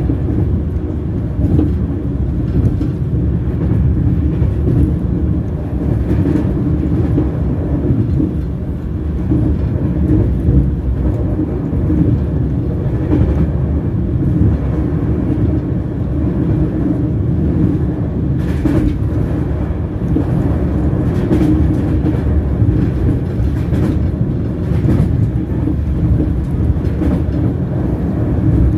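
Train wheels rolling on the rails: a steady low rumble with an occasional faint click.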